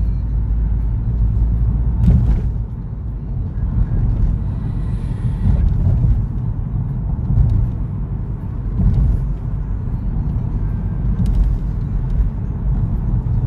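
Steady low rumble of road vehicle noise, swelling briefly about two seconds in.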